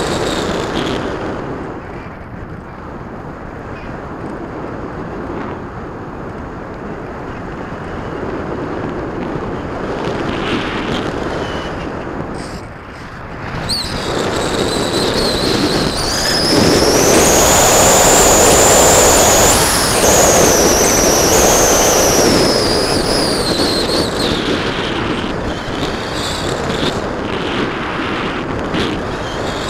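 Onboard audio from an R-Planes Pioneer FPV model plane in flight: rushing wind over the airframe with the high whine of its electric motor and propeller. About halfway through the whine climbs in pitch and gets louder as the motor speeds up, holds for several seconds, then drops back down.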